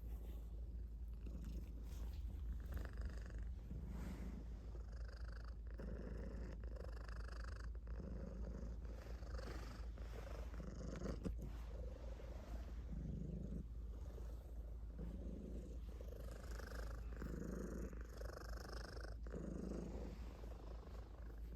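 Calico cat purring steadily, the purr swelling and easing about every second and a half.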